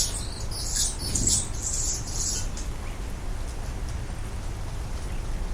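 Hummingbird's high, squeaky chirps and twitters, dying away after about two and a half seconds, over a low steady hum.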